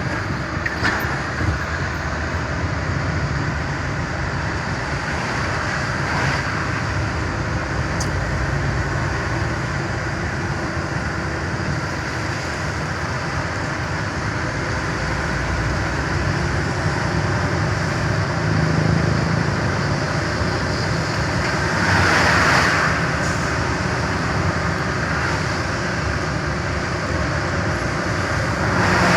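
A truck on the move: steady engine drone and road noise, with two brief swells of louder hiss, one about three quarters of the way through and one at the very end.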